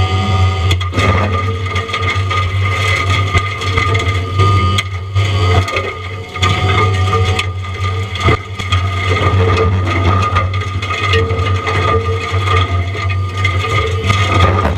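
Diamond Mower forestry mulching head on a John Deere 333E compact track loader grinding pine wood. The engine runs steadily under load with a steady high whine, broken by repeated cracks and crunches of wood being shredded.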